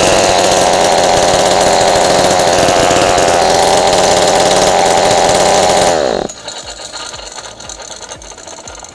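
Ryobi 40cc two-stroke chainsaw engine running at high speed, then its speed falls about six seconds in and it settles to a much quieter, uneven idle.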